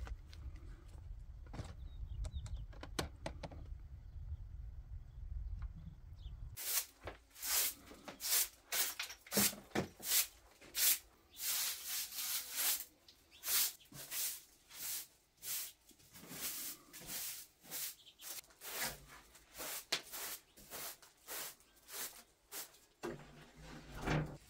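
Wind rumbling on the microphone with a few light footsteps. Then a short straw hand broom sweeping in quick strokes, about two a second, stirring up dust.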